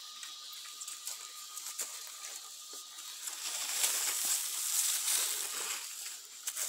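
Rustling and scraping of cut weeds and dry leaves over bare dirt, with scattered small crackles, louder in the second half. A faint steady high whine runs under the first half.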